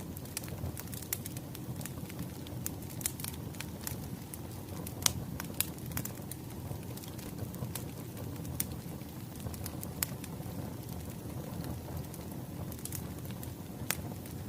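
Wood fire crackling: a steady low rumble of burning logs with irregular sharp pops, the loudest about five seconds in and again near the end.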